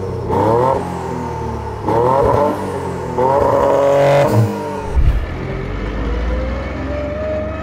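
Toyota GR Yaris's 1.6-litre turbocharged three-cylinder revved in four short rising blips. About five seconds in comes a clunk as the dog-engagement sequential gearbox goes into gear, then a low engine drone with a slowly rising whine from the straight-cut gears.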